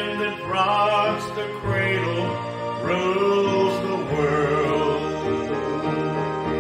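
A man singing, holding long wavering notes, over instrumental accompaniment.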